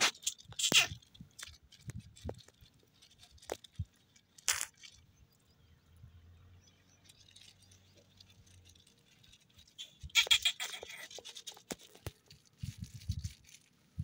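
Green ring-necked parakeets giving a few short, harsh squawks: one just under a second in, another about four and a half seconds in, and a run of them around ten to eleven seconds. A few low thumps come near the end.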